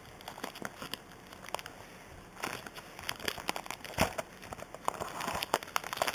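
Plastic shrink wrap being torn and crinkled off a trading-card box: sparse crackles at first, getting busier about two and a half seconds in, with a sharp snap about four seconds in.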